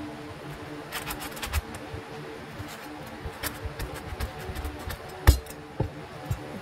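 A cleaver cutting into the tough husk of a fresh bamboo shoot on a plastic cutting board: a series of short clicks and knocks, with the loudest single knock about five seconds in, over faint background music.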